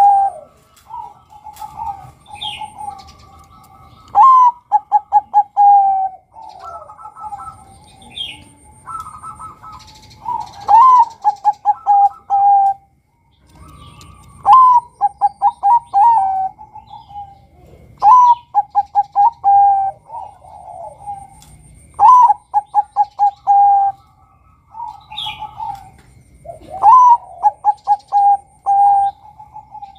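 Male zebra dove (Bangkok-type perkutut) singing its cooing song: a phrase every three to four seconds, each a rising note, then a quick run of short staccato coos ending on a held note. Other small birds chirp faintly and higher between the phrases.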